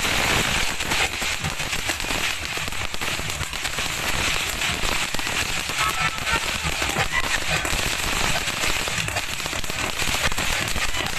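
Ground fountain firework spraying sparks, giving a continuous crackling hiss packed with rapid small pops.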